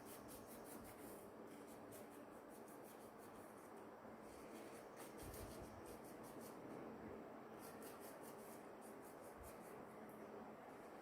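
Faint, quick repeated rubbing strokes as the gold contact pins of a laptop RAM stick are scrubbed clean.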